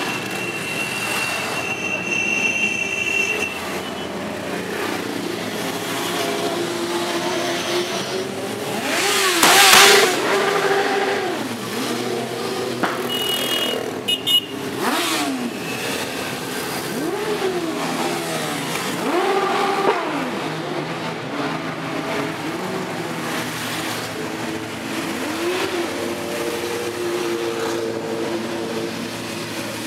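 A convoy of motorcycles riding past one after another, each engine rising and then falling in pitch as it goes by, with the loudest pass about ten seconds in.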